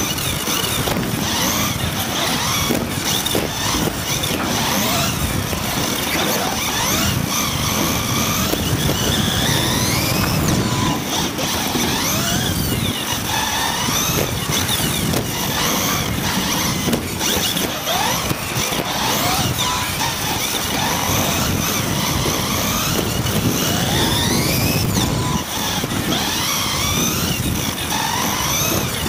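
Electric motor and drivetrain of a Team Associated B74.1 1/10 RC buggy, a high whine that rises again and again as the car accelerates out of corners and drops off the throttle, over steady tyre-on-carpet noise. A few short knocks come from jumps and bumps.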